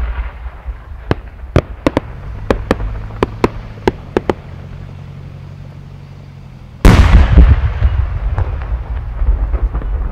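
A 10-go (about 30 cm) aerial firework shell with rising effects. First about a dozen sharp pops come one after another as it climbs. Then, about seven seconds in, comes the loud boom of the main shell bursting, trailing off in a long rumbling echo with crackle.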